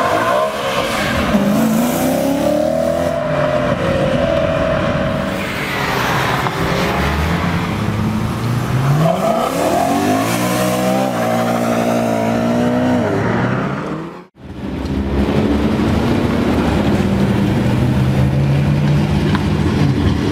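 V8 of a BMW M3 with an Akrapovič exhaust, accelerating hard in several rising runs as it drives by. The sound cuts out briefly about two-thirds of the way through, then the engine runs on more steadily.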